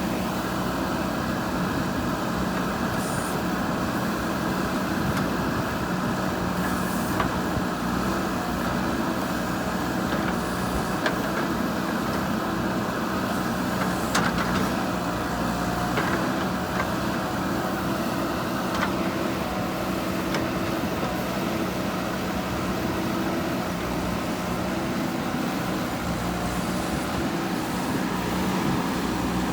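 JCB 3DX Super backhoe loader's diesel engine running steadily under working load, with a few sharp knocks, the loudest about halfway through.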